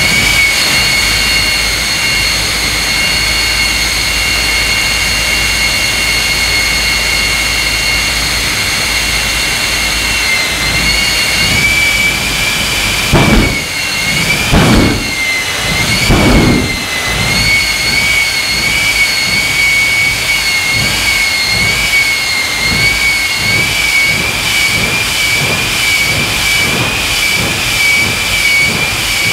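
Jet engines of a jet-powered semi truck running at the start line with a steady high-pitched turbine whine that wavers slightly. About midway come three loud whooshing surges, roughly a second and a half apart, as the afterburners flare.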